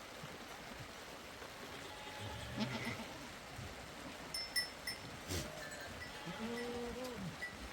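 Goats bleating, the clearest a long call about six seconds in, with a few light clicks.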